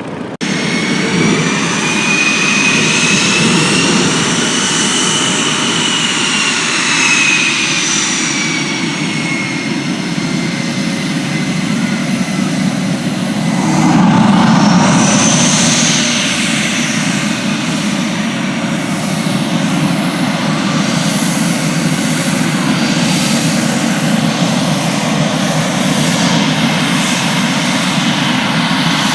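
Airplane engine running loud and close, with a high whine that glides up and down in pitch. It swells loudest about fourteen seconds in, then settles back to a steady run.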